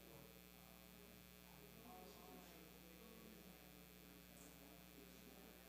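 Near silence: a steady low electrical mains hum from the audio feed.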